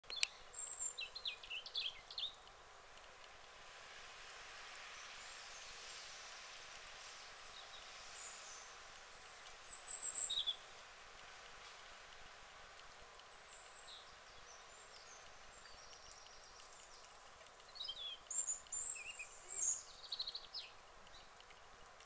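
Small songbirds chirping and trilling faintly in short clusters over a steady outdoor hiss: near the start, about ten seconds in, and again near the end.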